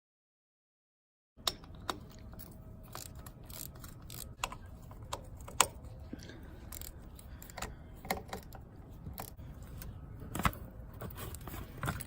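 Metal hand tools clicking and clinking against each other and against parts while someone works on a small dirt-bike engine, starting about a second and a half in after a silent gap.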